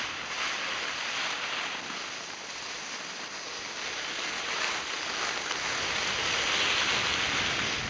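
Cross-country skis sliding downhill on a groomed snow track: a steady hiss that grows louder in the second half as speed picks up.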